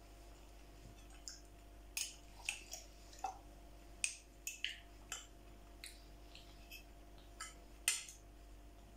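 A metal fork clinking and scraping against a glass jar as beans are scooped out onto a plate: about a dozen sharp clicks, irregularly spaced, beginning about a second in.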